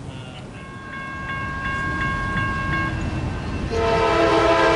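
A bell rings steadily about three times a second. Then, near the end, an approaching train's air horn sounds loud and sustained.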